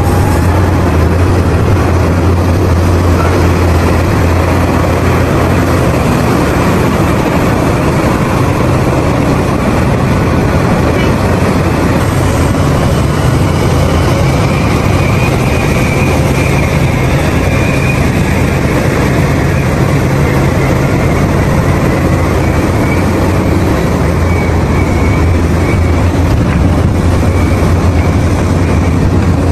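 Heavy diesel engine of a Caterpillar 6015B mining excavator running steadily under load as it works its boom and bucket, a deep hum that swells in the first few seconds and again near the end. A faint high whine comes and goes around the middle.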